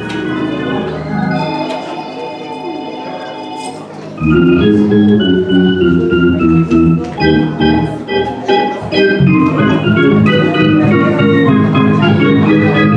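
Church organ playing offering music: soft held chords, then from about four seconds in louder and fuller, with the low notes moving in a steady rhythm.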